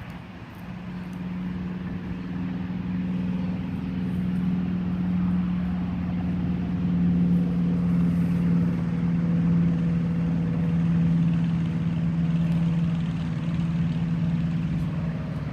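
A steady engine hum that grows louder over the first few seconds, then holds, dipping slightly in pitch near the end.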